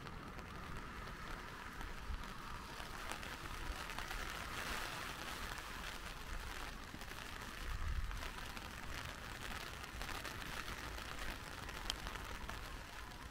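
Steady rain pattering as a fine, even hiss of drops, over a low rumble, with a brief louder thump about eight seconds in.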